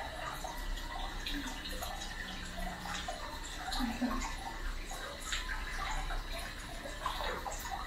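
Hot-spring bath water lapping and splashing lightly as a bather moves her hands through it, with scattered small drips and trickles.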